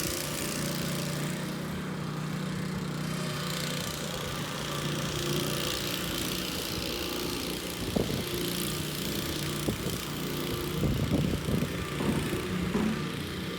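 An engine running steadily at an even pitch, with scattered knocks and clicks in the second half.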